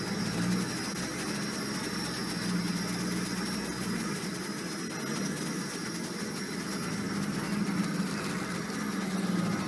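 Car engine running and road noise heard from inside the cabin on a rough dirt road, with a steady hum throughout. A deeper rumble underneath dies away about four seconds in.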